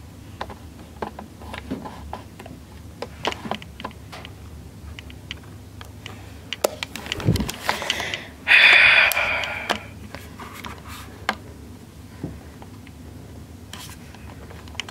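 Scattered clicks and knocks of a handheld camera being moved and handled, with a low thud and then a loud rushing burst of noise lasting about a second a little past halfway.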